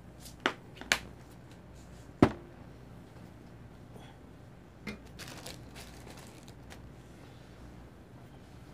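A few sharp clacks of seasoning bottles and a jar being picked up and set down on a table, the loudest about two seconds in, then a brief rustle.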